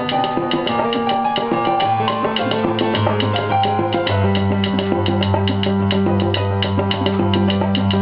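Salsa music with busy Latin percussion: sharp, even strokes over a bass line and melody.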